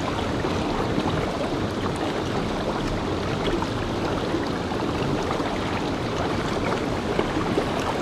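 River water rushing steadily over a rocky mountain streambed.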